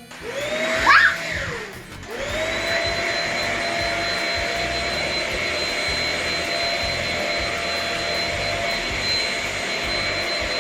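Shark Rocket HV345 corded stick vacuum switched on: its motor whines up, winds down again before two seconds, then restarts and runs steadily with a high whine and a rushing of air. A short rising squeal near one second is the loudest moment.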